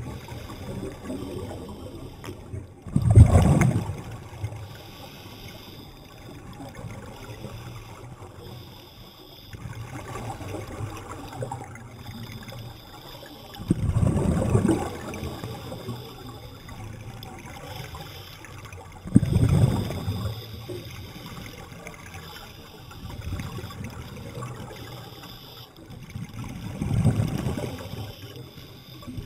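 Underwater scuba diver's exhaled bubbles rushing past the microphone in four loud surges several seconds apart, with quieter steady water noise between.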